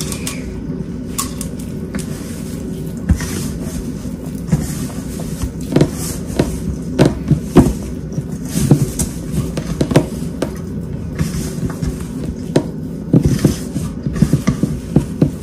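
Hand kneading soft, wet talipatti dough in a stainless steel bowl: irregular squelches and pats, with the bowl now and then knocking on the counter.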